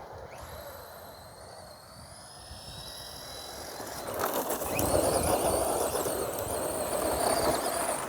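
A vehicle running, with a faint high whine over it; its rushing noise grows much louder about four seconds in.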